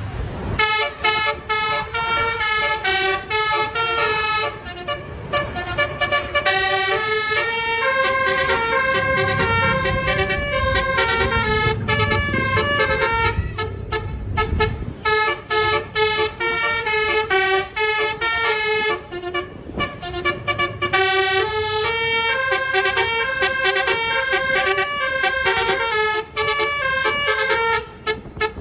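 Bus basuri telolet horn playing a melody: a string of short, flute-like horn notes stepping up and down in pitch like a tune, with a low rumble under it about midway.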